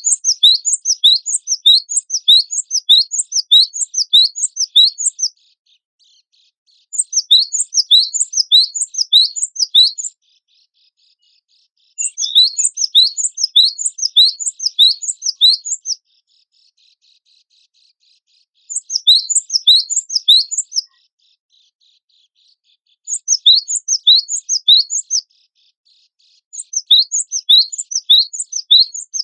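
Gelatik batu (cinereous tit) singing: loud, fast runs of sharp, high repeated notes in six bursts of two to five seconds, with short pauses between.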